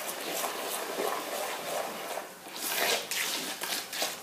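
A bare hand working oil into a wet egg, sugar and sesame-seed mixture in a bowl with a clawing motion, giving irregular wet squishing and swishing. It is loudest a little past halfway.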